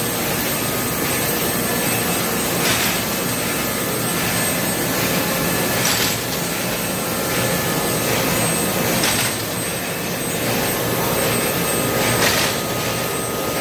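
Polyethylene bag-making line running with a steady, loud machine din. About every three seconds a short burst of noise comes as the bag machine's seal-and-perforate bar cycles on the moving blue film.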